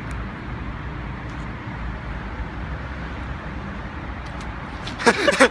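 Steady low outdoor background rumble with no distinct event, of the kind left by distant traffic. Near the end a man's voice breaks in loudly.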